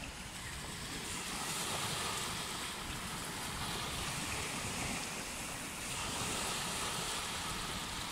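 Small waves breaking and washing up a sandy beach, the surf rising and falling gently, with wind on the microphone.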